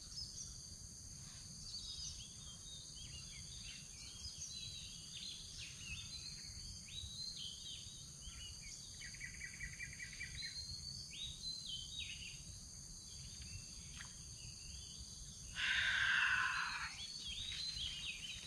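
Insects droning steadily and high, with birds chirping off and on and a quick trill near the middle. About fifteen seconds in, a louder harsh, noisy sound lasts about a second and a half.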